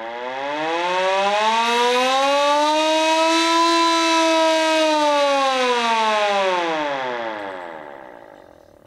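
Hand-cranked mechanical siren wound by hand: its wailing tone rises over the first few seconds, holds at the top around the middle, then falls and fades away as the cranking stops.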